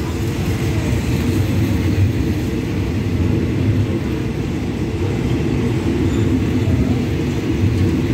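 Passenger coaches of a rapid train rolling slowly past on the rails, a steady low rumble of wheels and running gear.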